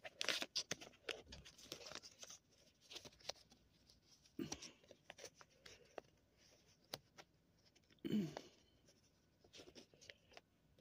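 A $20 banknote being folded and handled by fingers: faint, irregular paper crinkling and rustling with small clicks, busiest in the first two seconds, with a louder short burst about eight seconds in.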